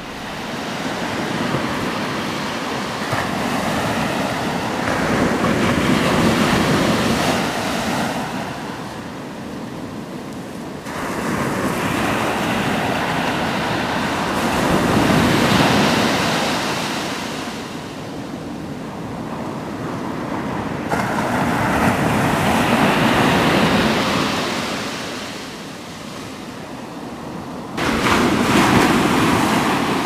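Ocean surf washing onto a beach, a steady rush that swells and ebbs every several seconds as the waves come in.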